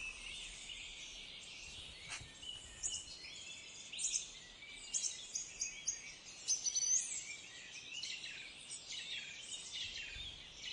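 Outdoor ambience: small birds chirping and twittering many times, thickest in the middle and later part, over a faint steady high hiss.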